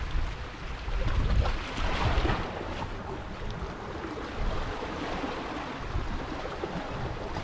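Sea waves washing against rocks, with wind buffeting the microphone.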